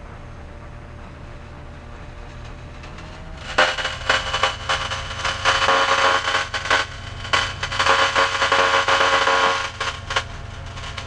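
The ultralight's engine drones steadily at low power through the cockpit intercom. From about three and a half seconds in to about ten seconds, a much louder buzzing tone, broken up and crackly, covers it, then stops.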